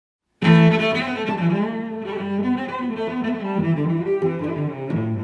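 Background music with bowed strings, led by cello and double bass, coming in abruptly about half a second in after dead silence.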